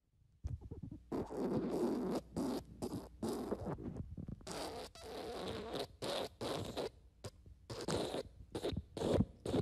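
Fart sound effect: a long run of rapid sputtering bursts, starting about half a second in and going on with a few brief breaks.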